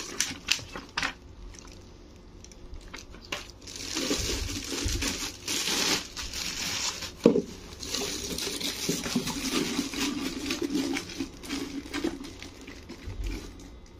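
Clear polythene packaging bags crinkling and rustling as purifier parts are unwrapped, with a few sharp knocks; it is quieter for a couple of seconds near the start.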